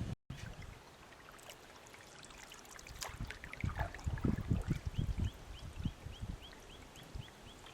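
River water trickling and gurgling, with low bumps and scattered small knocks over it. In the second half a rapid run of about a dozen short high chirps repeats, about four a second.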